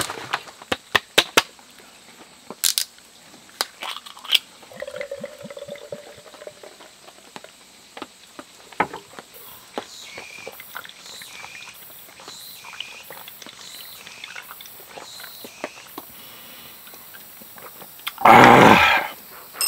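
Cicadas calling in a repeating pulsed phrase through the middle stretch. At the start there are scattered clinks and taps like utensils against dishes. Near the end comes a loud, short vocal sound.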